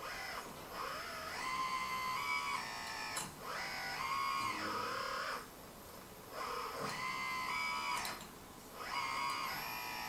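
Hydraulic pump and valves of a Huina K961 1/16-scale RC excavator whining in four runs as the swing, boom, arm and bucket are worked, the pitch stepping up and down with the load, with short pauses between moves. The pump starts by itself whenever a function is operated.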